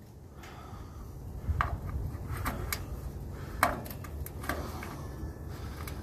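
Scattered small clicks, knocks and scrapes of a bayonet tail-light bulb being pushed and twisted into its socket inside a sheet-metal tail-light housing. The bulb is hard to get in, and the fumbling runs under a low rumble. The sharpest knock comes about midway.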